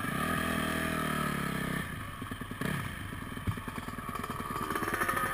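Motocross dirt bike engine, heard from on the bike: held at steady revs for about two seconds, then the throttle closes and it falls back to a low, uneven putter at low speed.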